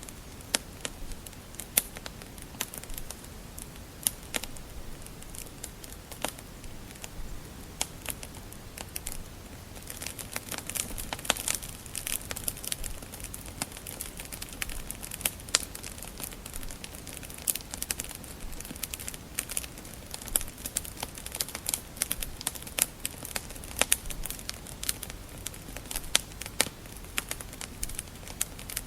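Wood fire crackling with frequent sharp pops and snaps over a soft hiss. The pops get busier about a third of the way in.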